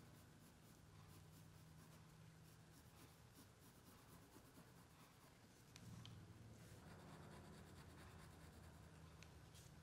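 Very faint scratching of a pencil drawing lines on paper, barely above silence.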